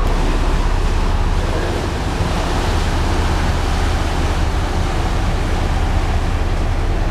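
Steady low hum of a river cruise ship's engines under a loud, even rushing noise.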